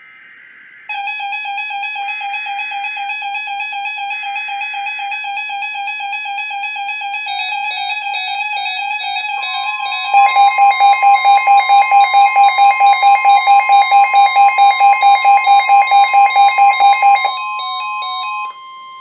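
NOAA Weather Radio warning alert. Three short screeching bursts of SAME digital header data come first, with a weather alert receiver's electronic alarm starting under them. About halfway in, the steady warning alarm tone joins, and the alarm turns to loud fast beeping, about three a second. The beeping stops shortly before the end and the steady tones linger.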